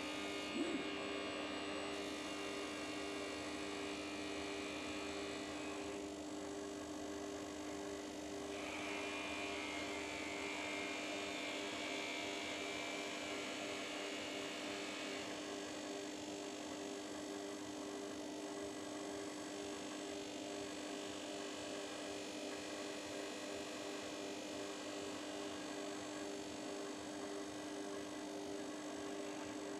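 FERM bench grinder with felt polishing wheels running with a steady electric hum while an industrial robot holds a small metal part against the spinning wheel; a higher hiss from the polishing contact comes and goes, strongest from about 9 to 15 seconds in. A short click sounds just after the start.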